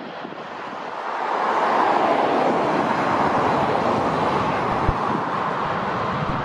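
Boeing 757-200 freighter's twin jet engines at takeoff power as it begins its takeoff roll: a steady jet roar that grows louder about a second in and then holds.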